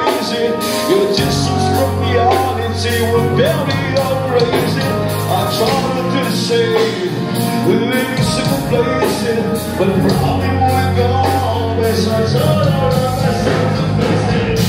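Rock song with a singing voice over a steady bass line and drums.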